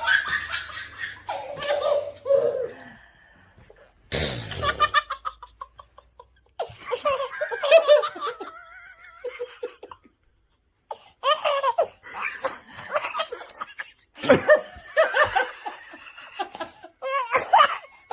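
Baby laughing in repeated high-pitched fits of giggles and belly laughs, broken by a short pause a few seconds in and a full second of silence near the middle.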